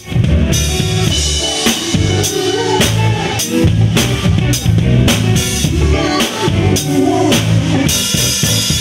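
Acoustic drum kit played with sticks in a steady groove of bass drum, snare and cymbal hits, with low pitched notes from other music beneath it.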